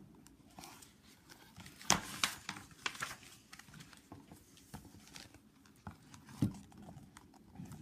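Paper rustling and handling noise as the pages of a picture book are turned, with light scattered taps and two sharper knocks, about two seconds in and about six and a half seconds in.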